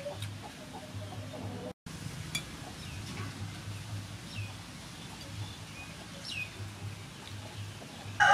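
Scattered faint bird chirps, with a couple of short falling calls about six seconds in. There is a brief dropout about two seconds in, and a rooster starts crowing right at the end.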